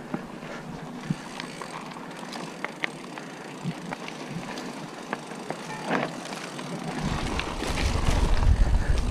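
Mountain bike rolling fast over a dirt trail, heard from a handlebar-mounted camera: tyre noise with frequent rattles and clicks from the bike. A deep rumble builds near the end as the ride gets rougher and faster.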